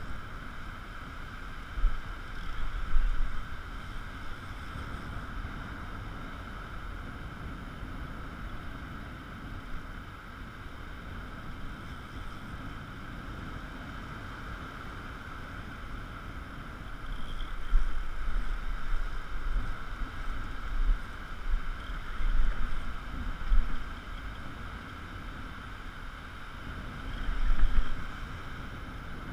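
Wind buffeting the microphone in gusts over a steady rush of surf, with heavy gusts a couple of seconds in, through the second half, and again near the end.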